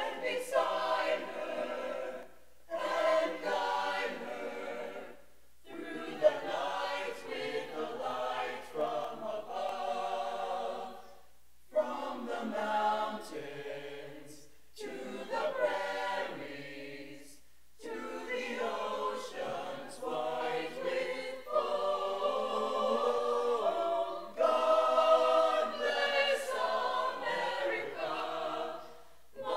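A choir singing unaccompanied, in phrases a few seconds long, each followed by a brief pause for breath.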